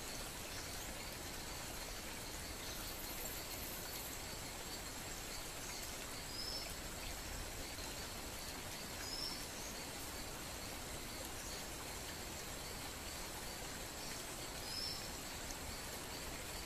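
Steady outdoor background hiss with a faint, short, high bird-like chirp repeating every four to five seconds. No scissor snips stand out.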